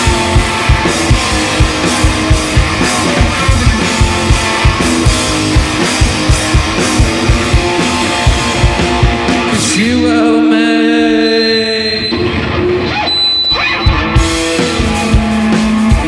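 A live rock band playing: electric guitar over a drum kit keeping a steady, driving beat. About ten seconds in, the drums drop out for a couple of seconds while a held guitar note rings, then the drums come back in.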